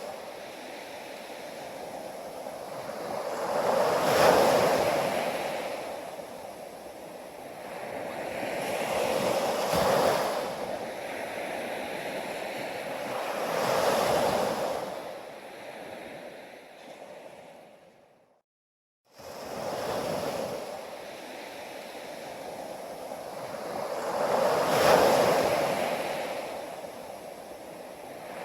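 Ocean waves breaking on a beach: a rushing wash that swells and recedes every few seconds, with four main surges. The sound cuts out completely for under a second about two-thirds of the way through, then resumes.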